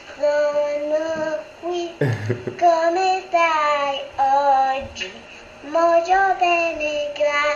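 A young boy singing a song in held, gliding notes, played back from an old home video through a laptop's speakers. A brief thump about two seconds in.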